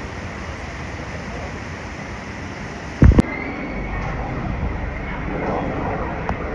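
Distant jet airliner passing high overhead: a steady low rumble that swells slightly in the second half, under outdoor background noise. A brief loud bump of microphone handling or wind hits about three seconds in.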